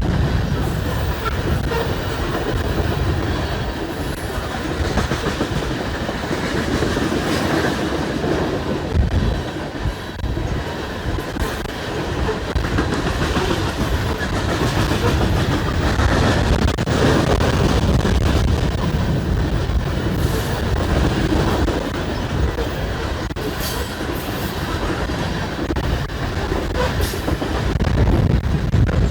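Coal train's railroad cars rolling past steadily, steel wheels clicking over the rail joints.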